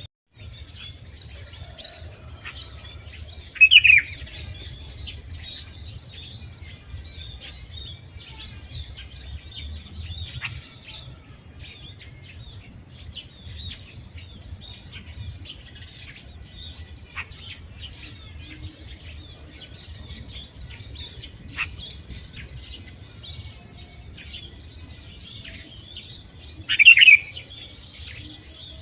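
Sooty-headed bulbul calling twice, short and loud, about four seconds in and again near the end. Under it run a steady high-pitched insect drone and many faint chirps.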